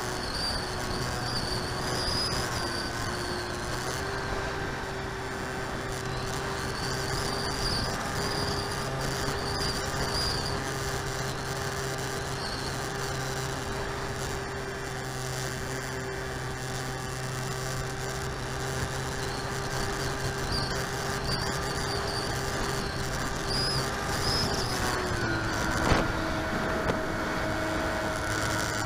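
The Park 480 brushless electric motor and three-blade propeller of an RC foam-board plane drone steadily over wind noise, as picked up by the onboard camera. Near the end the pitch steps down a little, and a brief sharp knock follows.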